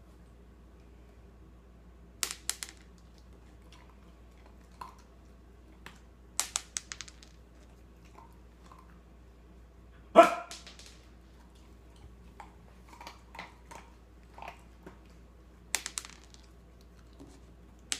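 A dog barks once about ten seconds in, the loudest sound. Around it come small clusters of sharp clicks: food pieces dropped onto a wooden floor.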